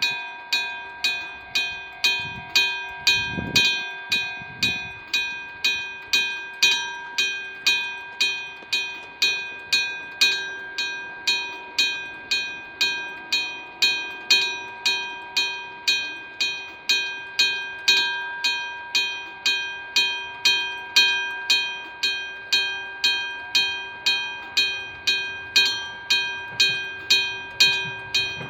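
Japanese railway level-crossing alarm ringing its steady 'kan-kan' bell, about two strikes a second, a sign that a train is coming. A low rumble begins near the end.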